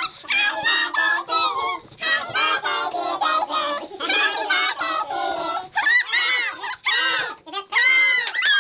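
Several people's excited high-pitched voices squealing and shouting over one another, with no clear words.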